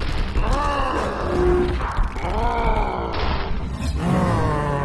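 Cartoon fight soundtrack: a man's voice giving three drawn-out groans and grunts over a steady low rumble, with a brief whoosh about three seconds in.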